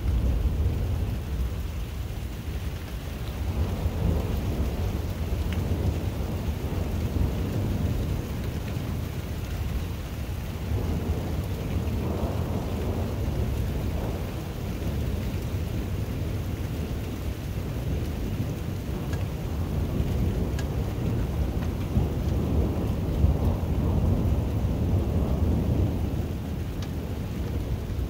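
Arriving thunderstorm: a continuous low rumble that swells and eases every few seconds over rain and wind, a strange noise that sounds like a gun and wind and thunder.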